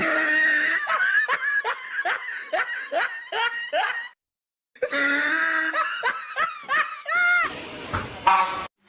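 Loud, hearty laughter in rapid repeated 'ha-ha' bursts. It breaks off about four seconds in and starts again half a second later.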